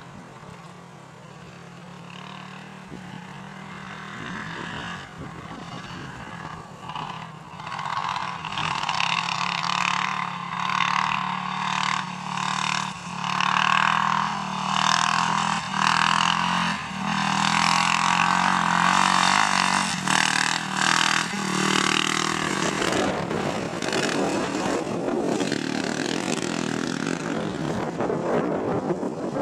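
Yamaha YFZ450 quad's single-cylinder four-stroke engine running. It grows louder from about eight seconds in and surges and dips over and over as the throttle is worked through a wheelie. About three-quarters of the way in the sound changes abruptly to a more even, noisier rush.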